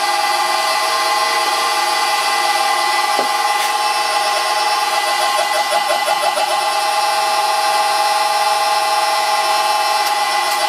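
Old lathe running under power from a 1 hp three-phase electric motor on a variable frequency drive, belt-driven through a V-belt: a loud, steady whine made of several tones over mechanical running noise. It runs a bit jumpy.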